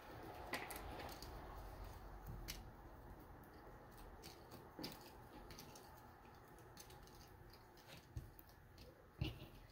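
Faint clicking and rustling of cardboard jigsaw puzzle pieces being broken apart and sorted by hand, with a slightly louder clack about nine seconds in.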